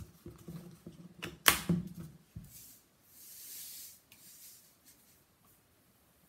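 Table salt poured from a plastic salt drum into a plastic measuring cup: a soft hissing trickle for about a second and a half, then a shorter one. Before it come a run of clicks and knocks from handling the drum and cup, the sharpest about a second and a half in.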